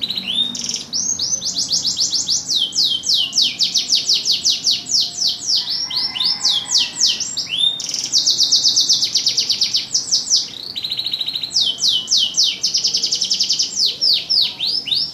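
Domestic canary singing a continuous song of rapid, repeated high notes that sweep downward, strung into quick trills, with a short buzzy rattle about eleven seconds in.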